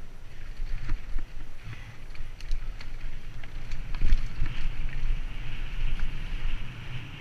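Santa Cruz mountain bike descending a rocky dirt singletrack, heard from a helmet camera: a steady low rumble of tyres and wind on the microphone, broken by frequent knocks and rattles from the bike over rocks. There is a heavy knock about four seconds in, and a higher hiss builds over the second half.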